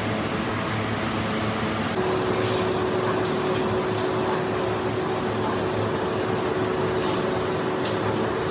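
Factory machinery running steadily, a dense mechanical din with an electric hum that jumps to a higher pitch about two seconds in, and a few faint ticks.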